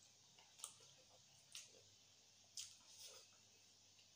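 Near silence with a few faint eating sounds: four short, soft smacks of chewing, about one a second.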